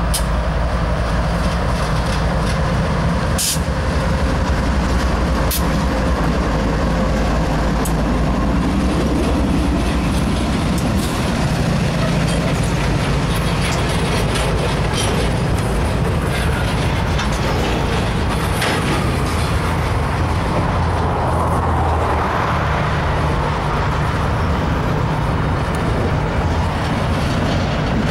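Freight train cars rolling steadily past, steel wheels rumbling and clattering on the rails, with occasional sharp clicks.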